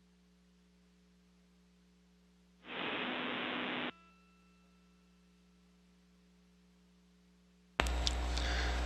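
Two bursts of radio static over a steady low hum on the space-to-ground communications loop. A hiss starts about three seconds in and cuts off after about a second, and a louder, fuller burst comes near the end.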